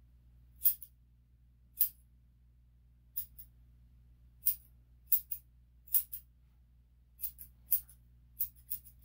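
Grooming scissors snipping a Shih Tzu's coat: about a dozen short, sharp metallic snips, one or two a second and sometimes in quick pairs.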